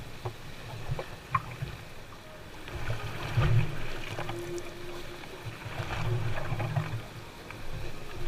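Wind buffeting the microphone in gusts, strongest about halfway through and again near the end, over choppy lake water slapping a bass boat's hull, with a few small clicks.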